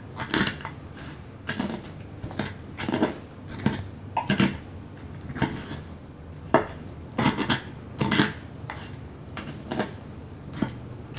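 Stone pestle smashing and grinding crispy fried chicken into sambal in a mortar: irregular sharp knocks with crunchy scrapes, roughly one or two a second.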